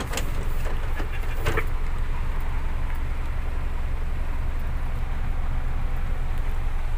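Hino truck's diesel engine running steadily while the truck drives, heard from inside the cab as a constant low rumble with road noise. A few short knocks sound in the first second and a half.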